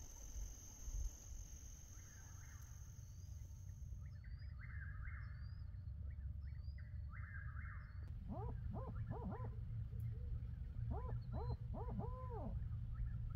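Barred owl hooting in its 'who cooks for you, who cooks for you-all' rhythm: two phrases of four hoots, starting about eight seconds in, the last note drawn out and falling. Before it, faint chattering bird calls and insects.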